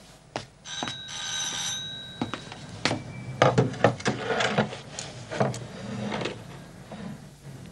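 Electric doorbell ringing once for about a second, followed by a run of clicks and knocks as a door lock and handle are worked and the door is opened.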